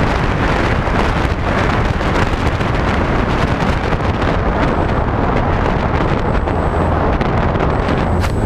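Heavy wind rush on the microphone of the camera mounted on a HobbyKing SkyEye FPV airplane as it glides down to land, with a faint high whine from about halfway through. A sharp knock near the end as the plane touches the grass.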